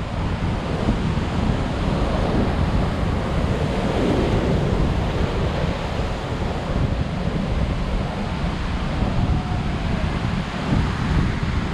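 High surf breaking and rushing on a beach, with strong wind buffeting the microphone in a heavy low rumble.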